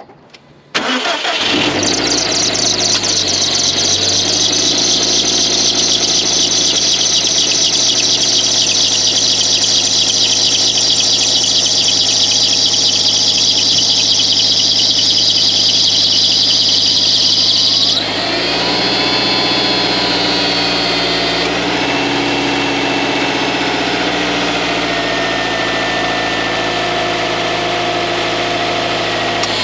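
Subaru Impreza WRX STI (GRB) turbocharged flat-four cranking and starting about a second in, then idling, with a loud high-pitched, rapidly chirping squeal from the alternator pulley and V-belt rubbing against each other. The squeal drops off suddenly about 18 seconds in, leaving a fainter whine over the idle.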